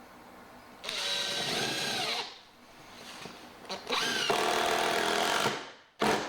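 Makita DTD152z cordless impact driver driving screws into redwood: two runs of about a second and a half, each speeding up and then holding steady, with a short third burst at the very end.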